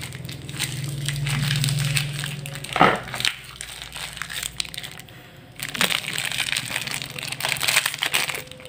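Thin plastic packet of bondon bait dough crinkling and crumpling as it is handled and opened, in irregular bursts with a louder crackle about three seconds in and a busier stretch near the end.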